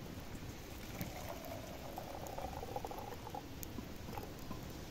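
Water poured in a stream from a camping pot into a small metal Syrian coffee pot, splashing and filling it, with the pour strongest from about a second in until past halfway. Faint crackle of the campfire underneath.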